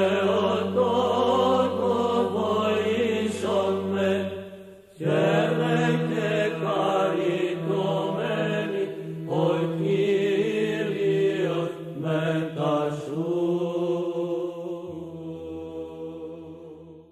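Byzantine chant: a sung melody over a steady, low held drone (ison). It dips briefly about five seconds in, then resumes and fades out at the end.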